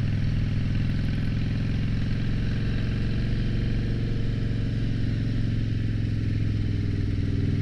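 2007 Harley-Davidson Dyna Street Bob's air-cooled Twin Cam 96 V-twin running steadily under way at low road speed.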